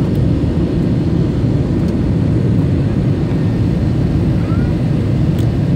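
Steady cabin noise inside an Airbus A321 in flight on its descent to land: a constant low rumble of the jet engines and rushing air.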